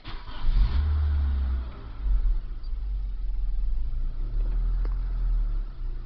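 Nissan SR20DE 2.0-litre four-cylinder engine running at a rough idle, its level surging and sagging unevenly with a dip about two seconds in and again near the end. The rough running is a fault that the owner traced to a failing mass airflow sensor.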